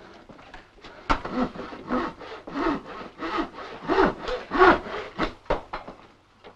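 Hand saw cutting through a wooden board in steady back-and-forth strokes, about three strokes every two seconds, with a few sharp knocks among them.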